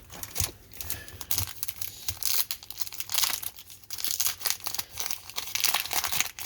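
Wax-paper wrapper of a 1991 Topps baseball card pack crinkling and crackling in irregular bursts as it is handled and torn open.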